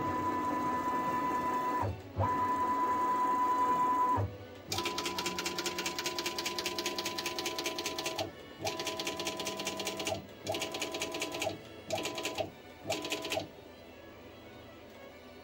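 Stepper motors of a FoxAlien Vasto CNC router whining as its axes are jogged into position. There are two steady-pitched moves of about two seconds each, then a longer move with a fast ticking, then shorter and shorter jogs that stop about two seconds before the end.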